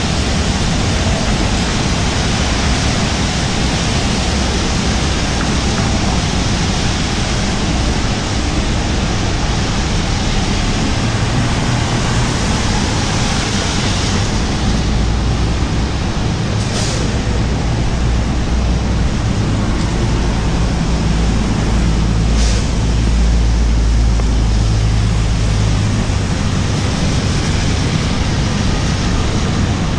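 Rainy city street: a steady hiss of rain and car tyres on wet asphalt, with a deeper vehicle rumble building up in the middle and two brief high hisses.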